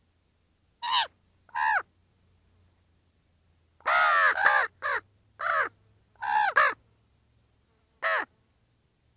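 Juvenile common ravens calling: harsh caws that slide down in pitch. Two single calls come first, then a run of several close together between about four and seven seconds in, and one more near the end.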